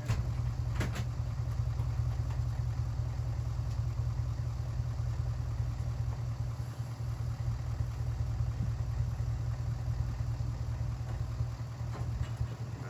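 A 410 cubic-inch Ford FE V8 in a 1967 Mercury Park Lane, heard during a jump-assisted cold start attempt: a steady, low engine drone that eases off near the end.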